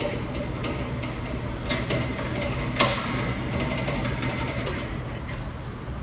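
A shooting-range target carrier running along its track: a steady mechanical rattle with a low hum and light clicking, and a couple of sharper clacks about two and three seconds in.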